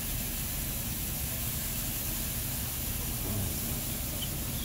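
Water spray from the moving arm of a Ryko Radius HT touchless car wash hitting the van, a steady hiss heard from inside the cabin over a low rumble.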